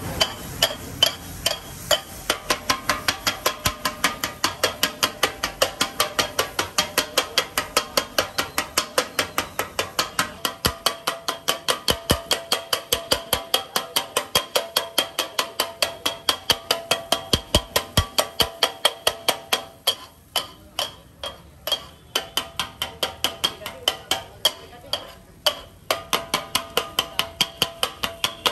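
A pair of steel kothu blades chopping parotta on a flat iron griddle: fast, rhythmic metallic clanging, about four strikes a second. The rhythm turns uneven for a few seconds around twenty seconds in.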